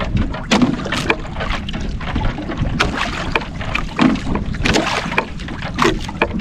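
Water slapping and sloshing against the hull of a small outrigger boat drifting on choppy water, with many short splashes and knocks and wind rumbling on the microphone.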